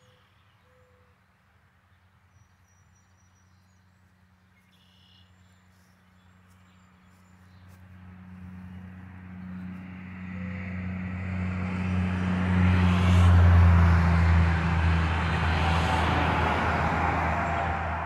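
A semi-truck with a box trailer approaching and passing on the highway: diesel engine drone and tyre noise swell from about seven seconds in, are loudest a little past the middle, and begin to fade near the end.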